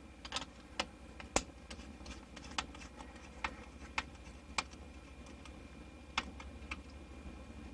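Sharp, irregular clicks and ticks, about a dozen spread out, from tightening the metal band clamps on a rubber Fernco coupling on a sink drain tailpiece.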